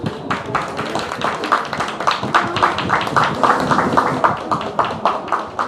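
A quick, even run of claps, about four a second.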